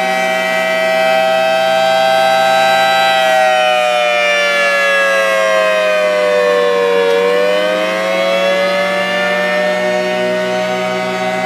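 Rotating outdoor warning siren at a fire station sounding during its monthly test: a loud wail of several tones at once. Its pitch sags over a few seconds, then climbs back to where it was.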